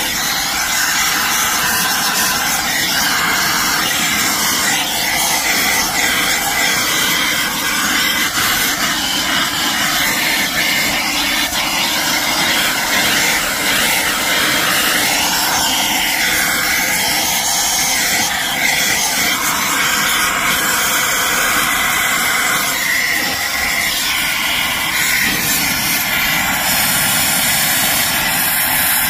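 Blue Point compressed-air vacuum running loud and steady, a rushing hiss as it sucks debris out of an engine's valley. Its tone shifts now and then as the nozzle moves.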